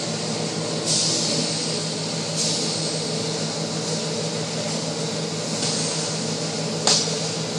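Automatic tunnel car wash heard from inside the car: a steady machinery hum under repeated swells of hiss as spray and the cloth brushes wash over the glass. One sharp slap about seven seconds in.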